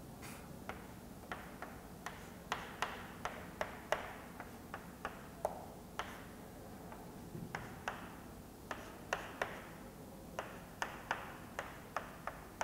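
Chalk on a blackboard as symbols and lines are drawn: a run of sharp, irregular taps, a few a second, with short scratchy strokes between some of them.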